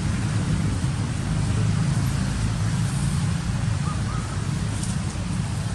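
Steady low rumble with an even hiss of outdoor background noise, with no clear single event.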